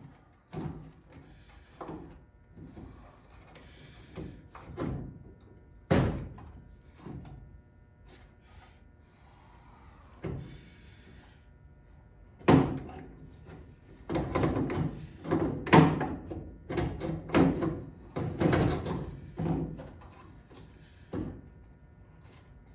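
Irregular metal clunks and knocks of tools and front-suspension parts being handled as a coil spring is set into its tower and an upper control arm is fitted. The knocks come in a quick cluster in the second half.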